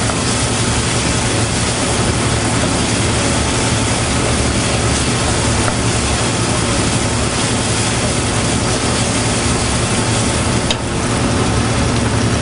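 Onions and garlic sizzling steadily in olive oil in a large aluminium pot, over a constant low hum. A single short click near the end.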